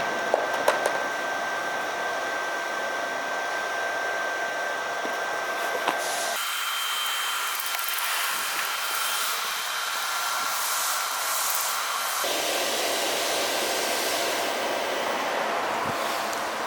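Shielded metal arc (stick) welding with a 3.2 mm coated electrode on a compact Pro 200i inverter welder: the arc gives a steady hiss, with a few sharp crackles about a second in. The hiss changes abruptly about six and again about twelve seconds in.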